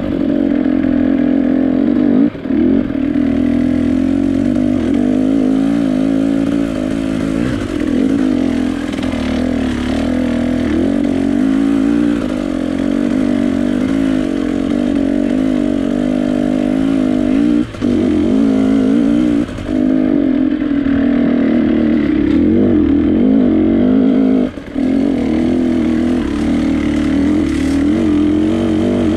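Vehicle engine running continuously under varying throttle as it is driven, its note wavering up and down, with a few brief drops where the throttle is closed, about 2, 18 and 25 seconds in.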